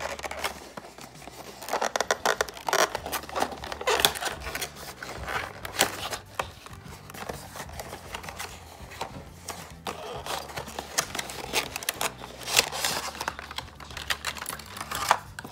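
Cardboard box being unboxed by hand: flaps pulled open and inner packaging slid out, with irregular scraping, rustling and sharp little clicks of card and a clear plastic tray.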